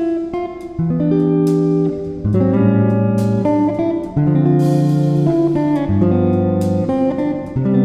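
Background music: an instrumental track of plucked guitar notes over a lower line of held notes that change about once a second.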